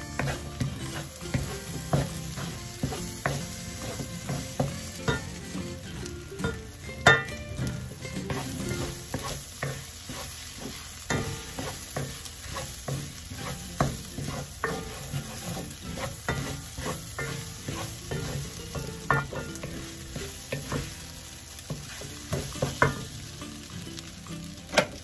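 A wooden spatula stirs and scrapes fried rice in a hot nonstick pan, giving frequent clicks and knocks against the pan over a steady sizzle.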